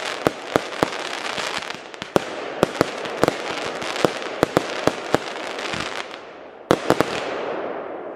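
Aerial fireworks going off in quick succession: a string of sharp bangs over a steady crackling hiss from the bursting stars, with a cluster of louder bangs about seven seconds in.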